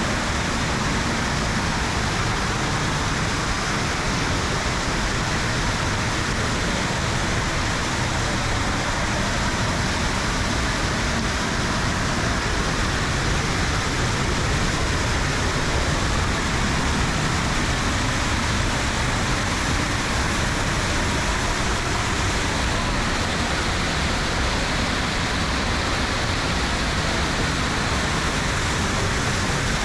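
Waterfall in high water pouring over a rock ledge: a steady, loud rush of falling water with no change.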